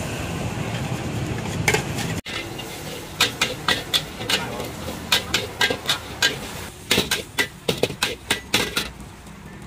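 Metal spatula striking and scraping a wok during stir-frying: sharp clanks a couple of times a second, starting about three seconds in and stopping near the end.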